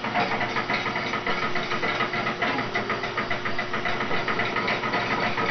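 Steady mechanical running noise, a continuous hiss with a faint low hum underneath, like a small motor running.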